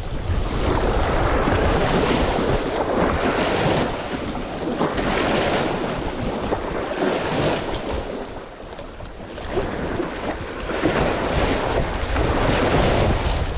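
Wind gusting across the microphone, with water moving around a boat on a choppy lake; the rush swells and fades every few seconds.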